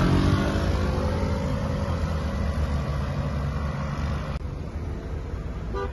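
Street traffic: a motor vehicle passing, its engine note falling in pitch as it goes by, over a steady low rumble. The background changes abruptly about four seconds in.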